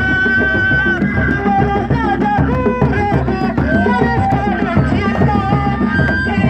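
Sundanese reak music: dogdog drums and other percussion playing a dense, steady rhythm under a loud, high melody that slides and bends in pitch.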